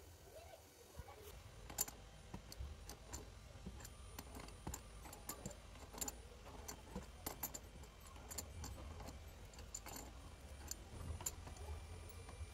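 Faint, irregular metallic clicks and clinks of a wrench being fitted and turned on the nuts of brass angle valves under a washbasin, with handling of the plastic bottle trap near the start.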